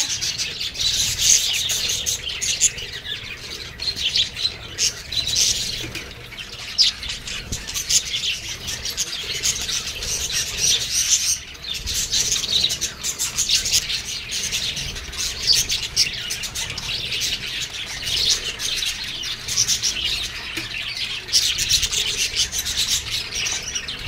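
A flock of budgerigars chattering, with many short overlapping chirps and warbles and no break. Now and then wings flutter as birds fly in and out while feeding on greens.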